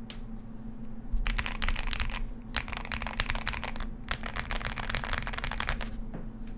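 Kit Adam V1 LEGO-style mechanical keyboard being typed on: its S^2 switches and PBT doubleshot keycaps clack, with the case dampened by foam and tape mods. A few keystrokes come first, then fast, dense typing from about a second in, easing off near the end.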